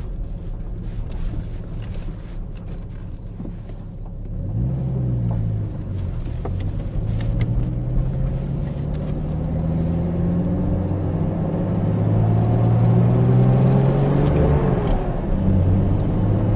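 1990 Jeep Comanche's engine accelerating, heard from inside the cab. A low rumble turns, about four seconds in, into an engine note that climbs in pitch and grows louder, dips once near the end and climbs again. It pulls without cutting out, the start-and-stall fault no longer showing.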